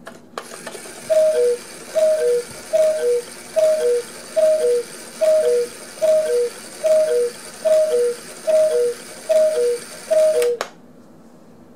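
Antique Black Forest cuckoo clock calling twelve times, a higher note then a lower one, about once a second, with its freshly re-papered bellows driving the original whistles. The striking train whirs under the calls, starting with a click and cutting off with a click after the last call.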